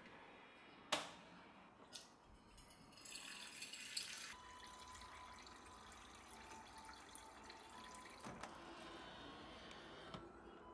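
Water-purifier dispenser running a thin stream of water into a stainless steel measuring jug: faint, steady splashing that stops near the end. Two short clicks come before it, about one and two seconds in.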